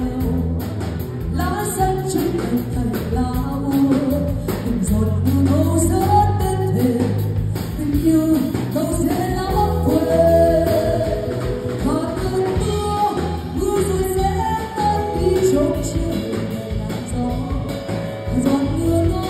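A woman singing into a microphone over a live band, with electric bass guitar and drums.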